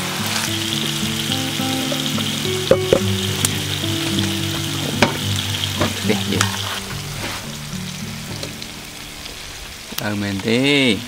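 Food sizzling as it fries in a pan, with a few sharp utensil clicks, over background music with steady low notes. A short rising-and-falling voice-like sound comes near the end.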